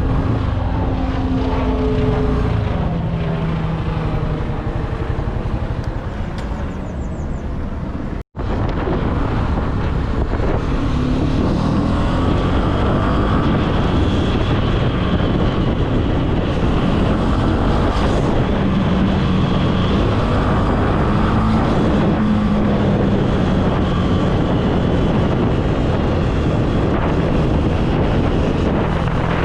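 Honda CB300F's single-cylinder engine running under way, its pitch shifting in the first several seconds, then holding steadier, with wind on the microphone. The sound cuts out for an instant about eight seconds in.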